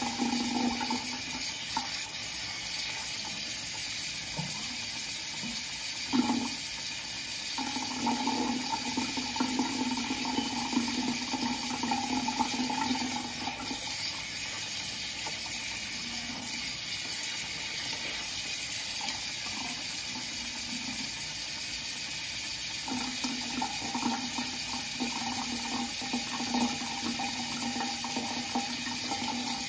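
Tap water running into a bathroom sink, steady, its tone changing in stretches as the flow is broken up.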